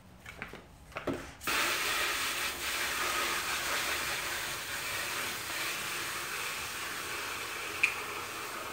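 Garden hose spray nozzle opened about a second and a half in, then spraying water with a steady hiss. A short high squeak sounds near the end.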